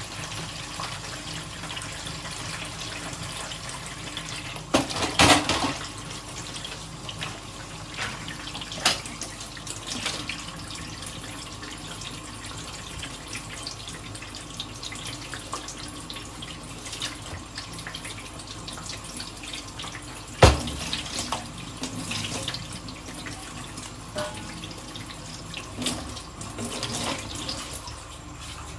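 Kitchen tap running steadily into a sink while dishes are washed, with clinks and knocks of dishes being handled; the two loudest knocks come about five seconds in and about twenty seconds in.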